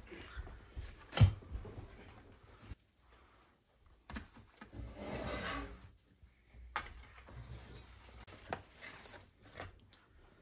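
Raw lamb rib pieces being handled and laid into a round metal baking tray: soft rubbing and handling noises with a few sharp knocks, the loudest about a second in.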